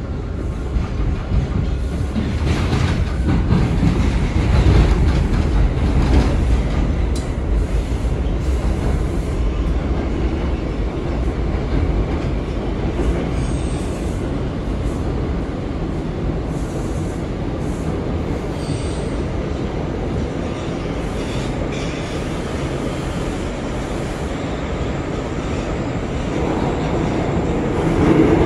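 R179 subway train running at speed, heard from on board: a steady low rumble of wheels on rail with scattered clicks, heaviest in the first several seconds, and a brief swell near the end.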